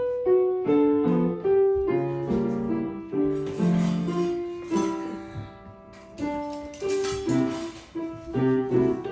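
Piano playing a slow tune of separate notes over lower chords, with short pauses between phrases.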